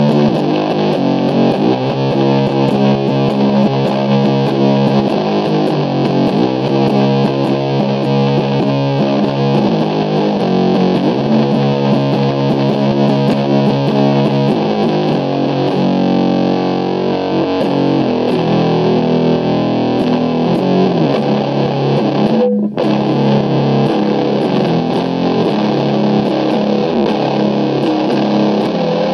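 SG-style electric guitar played through an Orange amp with heavy distortion: slow doom/sludge riffing of long, held, droning chords that change every second or two. The sound drops out for an instant about two-thirds of the way through.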